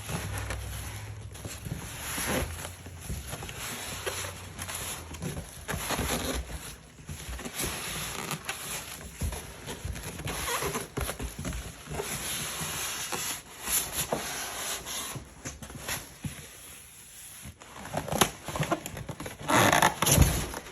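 Packaging being handled and pulled apart: an irregular run of rustling, scraping and crackling with short knocks, busiest near the end.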